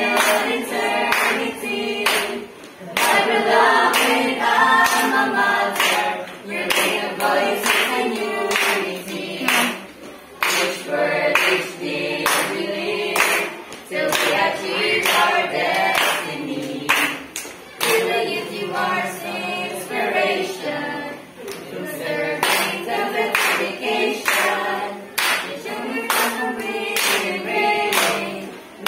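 A small mixed group of teenage voices singing a school hymn together, clapping their hands to a steady beat as they sing.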